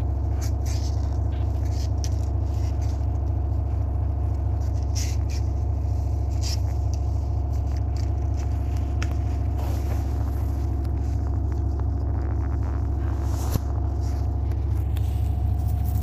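A kitten's claws scrabbling at the side of a cardboard box and rustling a blanket, in short scattered scrapes. Under them runs a steady low rumble.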